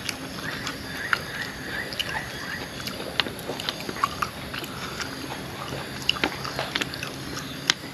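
A person eating: chewing with scattered short, sharp mouth clicks and smacks while picking through papaya salad with his fingers. A faint steady hum runs underneath, and a faint high tone is held for a couple of seconds early on.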